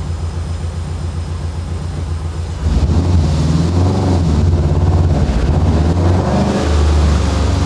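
Rally car engine idling, then about two and a half seconds in it revs hard under load on a chassis dynamometer roller, the revs rising and falling: a second-gear pull to dial in the fuel.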